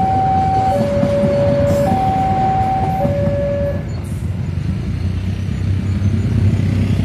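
Level-crossing warning alarm sounding two alternating tones, high then low, each about a second long, over the rumble of passenger train cars rolling past; the alarm stops about four seconds in as the last car clears. Near the end a steady low drone of an approaching diesel locomotive grows.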